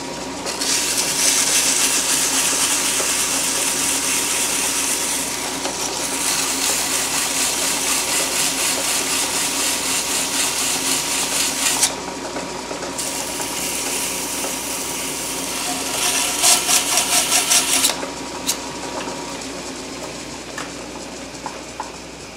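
Sandpaper held against the freshly cut threads in a chuck's bore as it spins in a metal lathe: a steady hissing scrape, broken off briefly about 12 s in and ending in a fast rhythmic rasp at about 18 s. After that only the lathe runs, more quietly.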